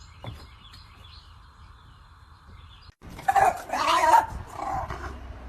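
A dog vocalizing loudly for about a second and a half, starting about three seconds in, after a faint steady hiss.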